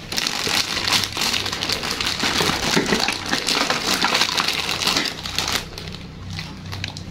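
Clear plastic bag crinkling as hands rummage through the toy pieces packed inside it, a dense crackle that eases off near the end.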